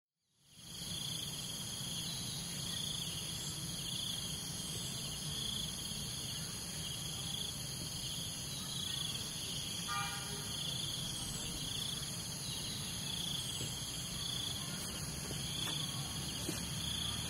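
Steady chorus of insects: several high-pitched trills at different pitches, the lowest pulsing in a regular beat, over a low steady hum.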